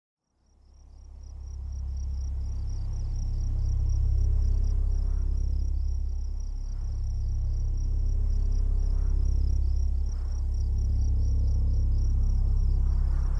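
Deep sub-bass drone from a d&b J-INFRA subwoofer array, fading in from silence and then holding steady with slow swells, with crickets pulsing rapidly over it.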